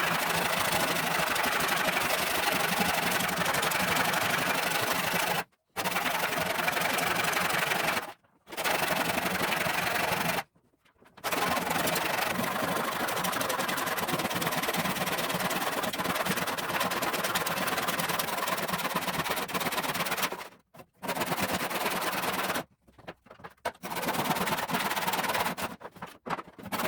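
A saw cutting a block of hard wood in two. The cutting noise is steady and is broken several times by sudden silences.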